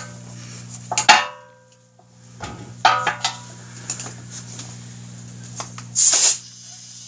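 A tubeless motorcycle front tire being inflated to seat its bead on the rim: two sharp metallic pops with a brief ringing of the wheel, about a second and three seconds in, then a short burst of air hiss near the end, over a steady low hum.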